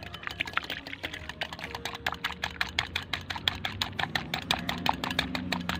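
Wire whisk clicking rapidly and evenly against a glass bowl, several strokes a second, beating egg whites to a froth.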